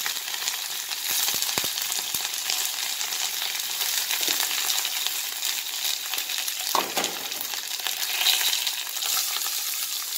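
Curry leaves and green chillies frying in hot oil with mustard seeds in a nonstick pan: a steady, dense sizzle with fine crackling and spattering.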